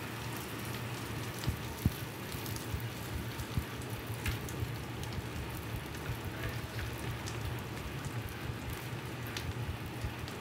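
Bacon strips sizzling on a hot flat-top griddle: a steady crackle with scattered sharp pops, over a low steady hum.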